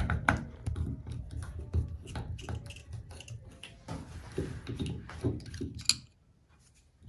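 Small clicks, taps and knocks of a screwdriver and metal parts being worked while the handle screw is removed and the handle is taken off a single-handle tub and shower faucet. The clicking stops about six seconds in.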